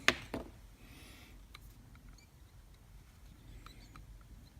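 A sharp click, a smaller one right after, then faint scattered ticks and taps: small plastic parts being handled on an opened 1/10 scale RC rock crawler transmission.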